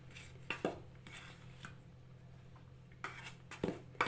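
Faint kitchen handling sounds while dough is mixed by hand: a few light knocks and scrapes against a mixing bowl, two about half a second in and two more near the end, over quiet room hum.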